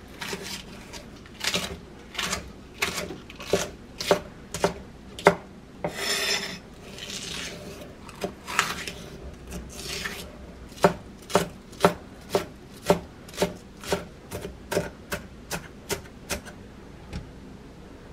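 Chef's knife cutting large green onions on an end-grain wooden cutting board: sharp knocks of the blade on the wood. The knocks are uneven at first, with a few longer scraping strokes in the middle, then settle into a steady run of about two chops a second in the second half.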